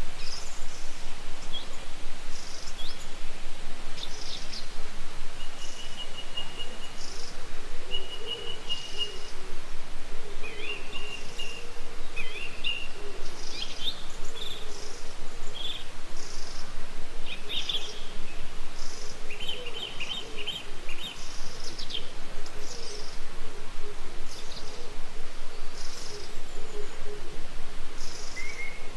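Several wild birds chirping and singing throughout, with short whistled notes and quick trills, over a steady background hiss.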